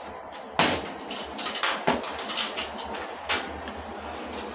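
Metal door frame knocking and clinking against the doorway as it is worked into place: a handful of sharp, irregular metallic knocks, the loudest about half a second in.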